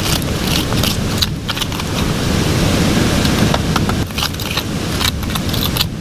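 Steady rush of a nearby waterfall, really loud, with repeated scraping and clinking of a small hand tool against bedrock and gravel as material is dug out of a crevice.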